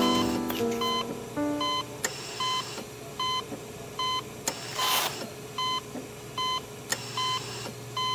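Hospital heart monitor beeping at a steady pulse, one short beep about every three-quarters of a second. A short hiss comes about five seconds in.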